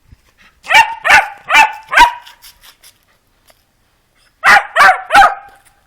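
A dog barking: four quick, high barks, a pause of about two seconds, then three more.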